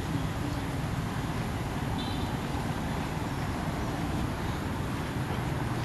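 Steady low rumbling outdoor background noise, with a brief high chirp about two seconds in.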